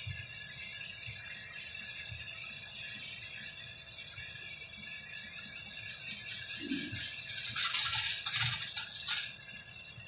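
John Deere S780 combine harvester running at a distance, heard as a steady hiss, while unloading rice into a truck through its auger. A short burst of crackling noise about three quarters of the way through is the loudest sound.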